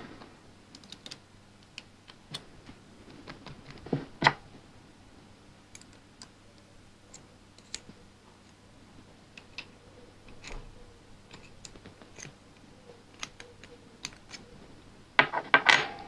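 Light metallic clicks and taps of keys and a keyring handled against a brass puzzle padlock as keys are fitted into its keyway. Sharper knocks come about four seconds in, and a quick run of clicks near the end.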